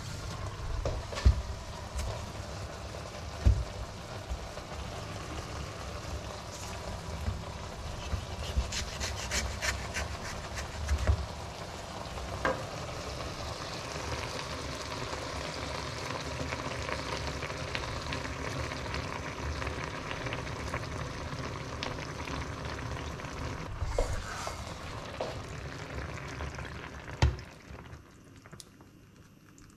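Sliced mushrooms and spinach sizzling steadily in a frying pan, with occasional sharp knocks and clicks. Near the end the sizzle dies away as cold cream is poured into the pan.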